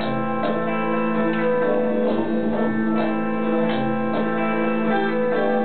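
Bulgarian tambura plucked in a loose rhythm, about two notes a second, over a steady sustained drone.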